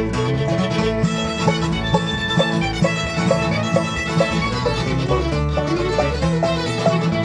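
Bluegrass band of banjo, mandolin, guitar and bass playing an instrumental passage, with quick picked notes over a steady bass line.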